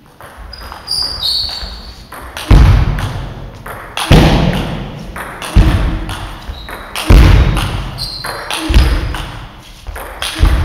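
A table tennis rally in a large hall: loud thuds about every one and a half seconds as the ball strikes table and bat, each ringing out in the hall's echo. A few short high squeaks come in between.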